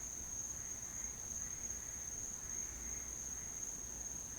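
Crickets trilling in one steady, continuous high-pitched tone, with faint frog calls repeating about once a second beneath it.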